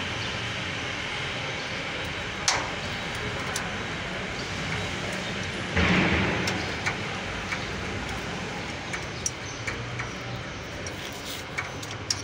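Small metallic clicks and taps from hands and a tool working brake-line fittings under a truck chassis, over a steady background hum. A short, louder rush of noise comes about six seconds in and fades within about half a second.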